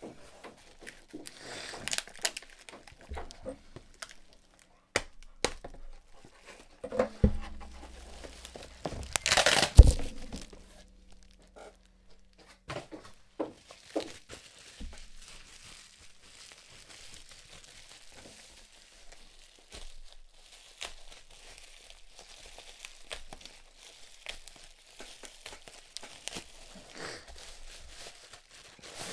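Bubble wrap and cardboard packaging being handled and pulled apart: irregular crinkling and rustling with scattered taps and knocks. The loudest moment is a burst of crinkling ending in a knock about ten seconds in.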